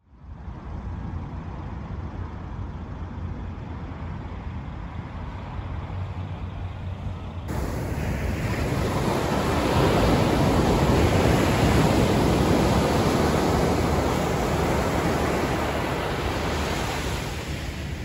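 Ocean surf breaking and washing up a sandy beach, with wind rumbling on the microphone. About seven seconds in the sound changes at a cut, and the surf grows louder, peaking a few seconds later before easing off.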